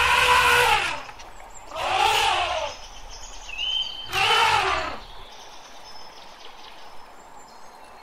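Elephant trumpeting: three calls of about a second each, near the start, about two seconds in and about four seconds in, each rising and then falling in pitch over a harsh noisy edge. A short high whistle, like a bird chirp, comes between the second and third calls.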